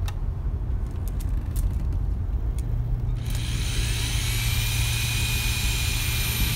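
Cordless drill spinning up about three seconds in, then whining steadily at a high pitch for about four seconds, over a low rumble.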